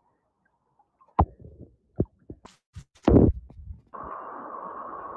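Handling noise from a phone being moved about: a run of knocks and thumps, one loud thump about three seconds in, then a steady hiss that starts about four seconds in.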